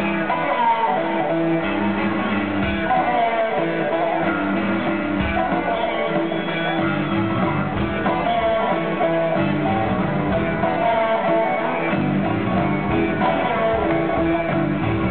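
Live band playing a slow blues, led by two electric guitars over bass, drums and keyboards, played steadily with no singing.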